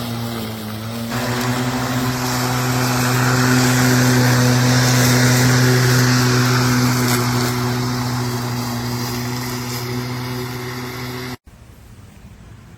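Cordless brushless electric lawn mower running, its motor and blade giving a steady hum with a whirring hiss that swells a little midway. About eleven seconds in it cuts off suddenly, leaving only a faint hiss.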